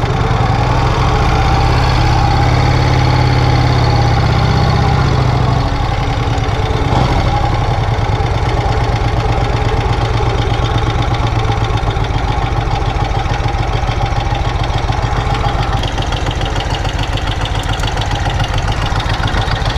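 1951 Vincent Rapide's 998 cc V-twin engine running with a steady, even beat; the deep part of its note drops a little about six seconds in.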